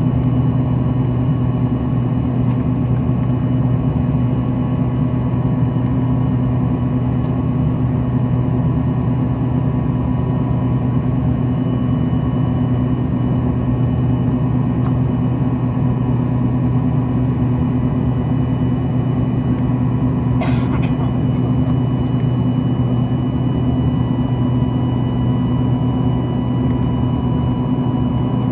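Steady cabin drone of an Embraer ERJ-145XR's rear-mounted Rolls-Royce AE 3007 turbofans, heard inside the passenger cabin: a constant low hum with several steady whining tones above it. There is a brief click about twenty seconds in.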